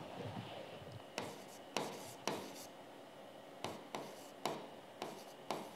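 A stylus tapping and scratching on the glass of an interactive touchscreen board while writing by hand. About nine sharp, irregular taps come roughly half a second apart, with faint scratching between them.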